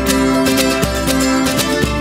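Intro music: a lively folk tune on plucked strings, mandolin and guitar, picked at a quick steady beat.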